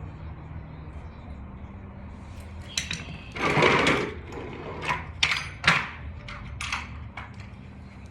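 Tools and hardware being handled: a longer scrape about three and a half seconds in, then a quick run of short, sharp knocks and clicks, over a steady low hum.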